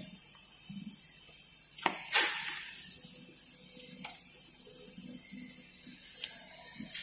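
Steady high-pitched hiss with a few light clicks and taps, the loudest about two seconds in.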